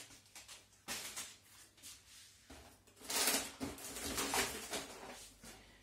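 Plastic and cardboard grocery packaging rustling, with a few light knocks as items are set down and picked up on a counter. The loudest rustle comes about three seconds in.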